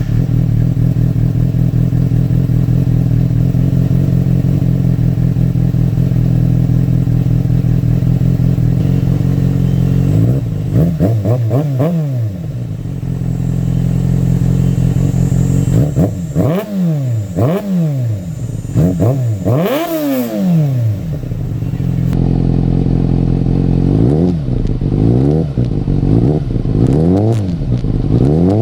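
2007 Kawasaki ZX6R's 600 cc inline-four engine, breathing through an aftermarket header with the catalytic converter removed. It idles steadily at first, then is blipped up and down in a series of quick throttle revs. It is running on a Power Commander map for an Akrapovič full system, which runs much smoother than the zeroed-out map that ran rich.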